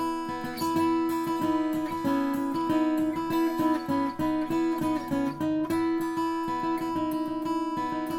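Background music: acoustic guitar strumming and picking steady chords.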